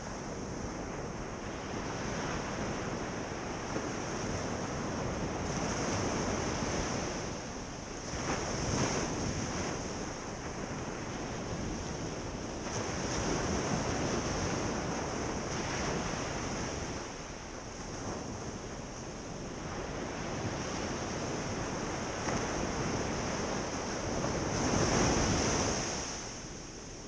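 Ocean surf breaking and washing up a beach, in swells that rise and fall every few seconds, the loudest wave near the end.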